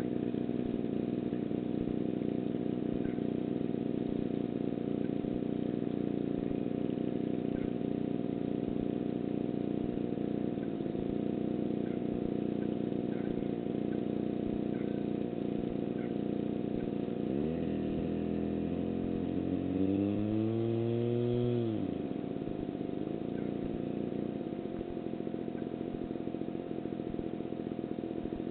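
Steady rumbling noise on a small onboard camera's microphone, with a faint constant whine. About two-thirds of the way through, an engine revs up, holds for a couple of seconds and drops away.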